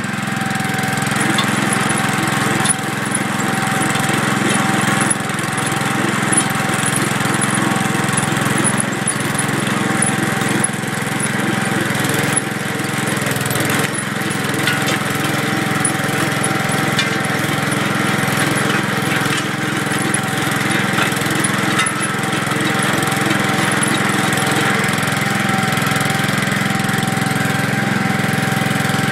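Gravely walk-behind tractor engine running steadily under load, driving a chain trencher whose digging chain keeps up a fast, even clatter as it cuts through soil.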